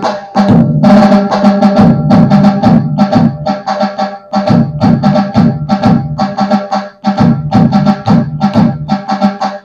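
Roland HandSonic electronic hand-percussion pad played by hand with dhol and tasha sounds, playing the standard Puneri dhol-tasha rhythm. Rapid, sharp tasha strokes ride over a deep dhol beat, with brief breaks between phrases.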